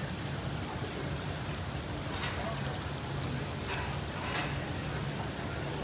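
Water running down the steps of a cascade water feature: a steady splashing hiss.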